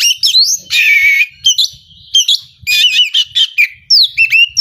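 Oriental magpie-robin singing loudly in a fast stream of whistled notes and sweeping glides, with a harsh buzzy rasp about a second in.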